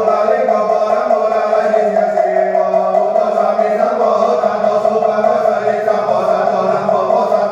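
Mahayana Buddhist prayer chanting: voices recite in a steady, drawn-out near-monotone with no pauses.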